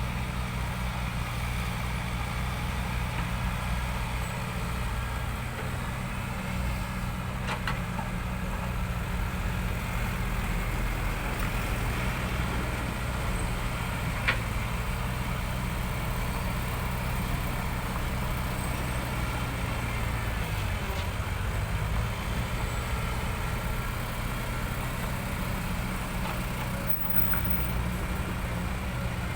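Heavy diesel engine of a Caterpillar excavator running steadily, with two short sharp knocks about eight and fourteen seconds in.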